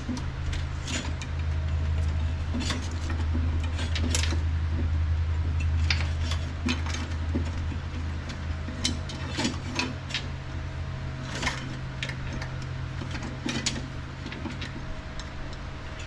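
Scattered metal clicks and clinks of tools and parts being handled, over a steady low hum.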